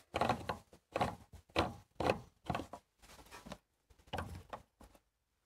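Fuel pump retaining ring on a Honda Civic fuel tank being twisted loose by hand: a string of short scrapes and knocks, about two a second, fading near the end.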